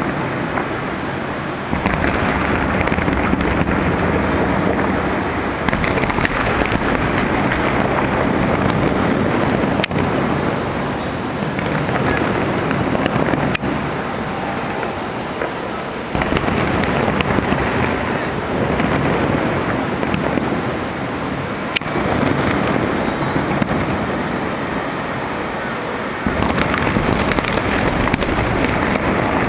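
Fireworks going off over the steady, dense noise of a large crowd, with a few sharp cracks standing out.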